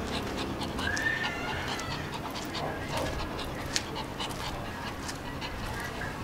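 Shih Tzu panting as it trots on a leash, with many quick light ticks and taps of its steps on concrete.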